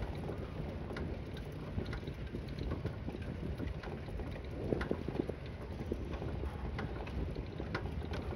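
Wind buffeting a phone's microphone on a moving bicycle, a steady, unevenly gusting low rumble. Scattered light clicks and rattles come through it every second or so.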